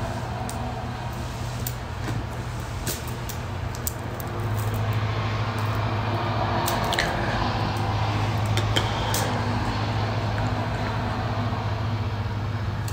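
A steady low background hum that gets louder about four seconds in and then holds, with a few faint clicks.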